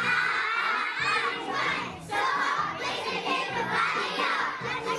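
A group of young children's voices, many at once, with short breaks about two and three and a half seconds in.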